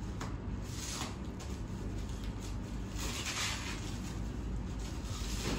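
Thin plastic packing film crinkling and rustling as it is pulled and unwound off a wrapped package by hand, in a series of short bursts, the loudest a little after three seconds in.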